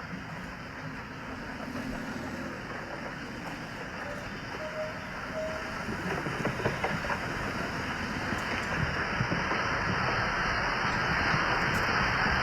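Floodwater rushing past, a steady rushing noise that grows gradually louder toward the end.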